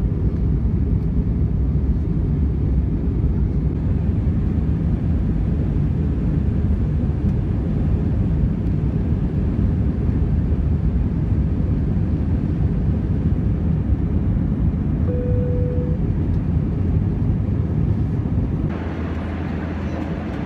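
Steady deep cabin rumble of a British Airways Airbus A320-232 in flight, its IAE V2500 engines and the airflow heard from inside the cabin by the window. A brief steady tone sounds about three-quarters of the way through, and near the end the rumble drops to a lighter hiss.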